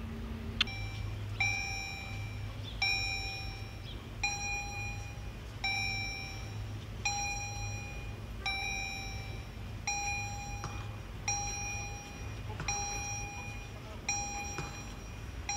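Railway level-crossing warning signal ringing a repeated ding, one about every second and a half, with each tone held until the next: the alarm that the crossing is closing for an approaching train.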